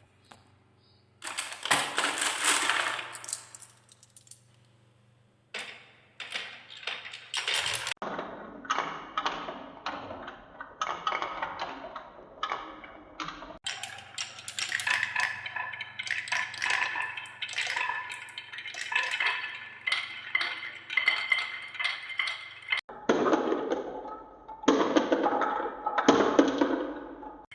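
Marbles rolling and clattering down a wooden marble run, a fast stream of clicks and knocks as they hit and drop between track pieces, with a brief lull about four seconds in.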